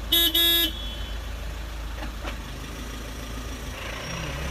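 Two short blasts of a vehicle horn, back to back, at one steady pitch. They sound over the low, steady running of an engine heard from inside the vehicle's cabin.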